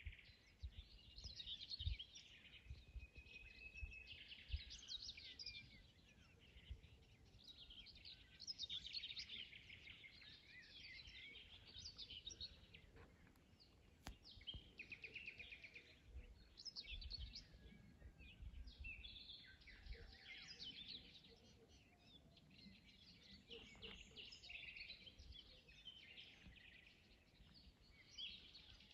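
Several songbirds singing at once in an early-morning chorus, faint chirps and trills overlapping and going on throughout, with a low rumble now and then underneath.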